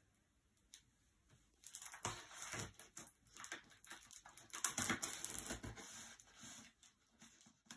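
Packing tape being peeled and ripped off a cardboard shipping box: a scratchy crackling rip that comes in fits and starts from about two seconds in, with ticks and rustles of hands on the cardboard.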